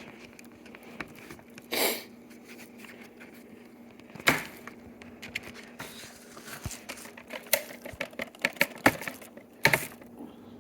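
Irregular clicks, taps and rustling of hands handling hard objects, with a few louder rustles, over a faint steady hum.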